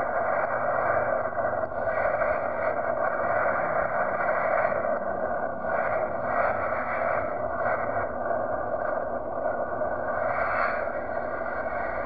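Jet engines of a widebody airliner at takeoff thrust during the takeoff roll, a steady rushing roar heard from a distance with small swells in level.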